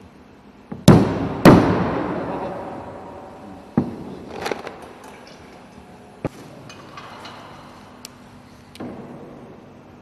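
Glass oil bottles and their boxes being handled on a wooden table: two loud knocks about half a second apart, each ringing out, then a few lighter taps and clicks.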